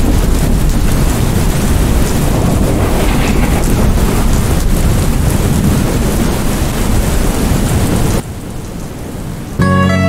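Heavy rain sound effect: a loud, steady downpour that drops to a quieter hiss about eight seconds in. Bright plucked-guitar music starts near the end.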